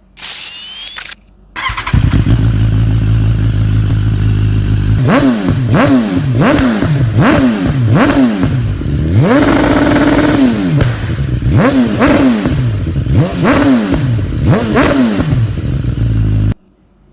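BMW S1000RR motorcycle inline-four engine with an aftermarket exhaust idling, then revved in quick throttle blips about twice a second, with one longer held rev in the middle, before settling back to idle and cutting off suddenly.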